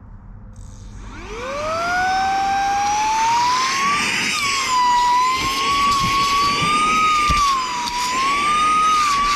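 Cordless mini vacuum cleaner switched on about a second in: its motor whine rises quickly in pitch as it spins up, then runs on as a high whine that wavers up and down over a rush of air.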